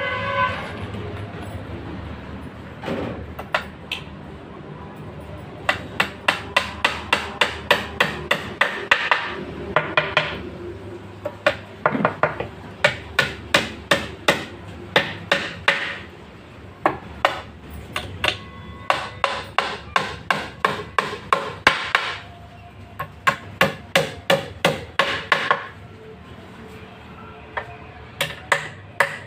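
Hammer blows in quick, even runs of about three or four strikes a second, several seconds at a time, with short pauses between the runs.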